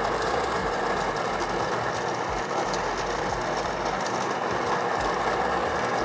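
The Smeg Manual Espresso Machine's built-in grinder grinding a double-shot dose of espresso beans straight into the portafilter, a steady, even grinding noise without a break.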